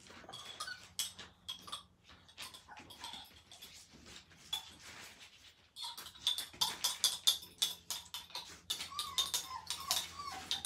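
Young German Shepherd puppies squeaking and whimpering, with scratching and rustling of their paws on the blankets; a short run of higher whines comes near the end.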